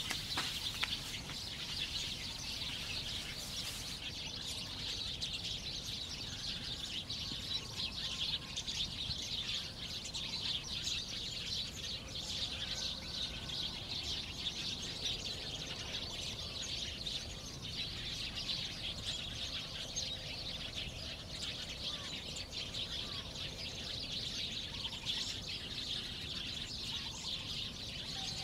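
A dense, steady chorus of small birds chirping, with a few faint whistled notes mixed in.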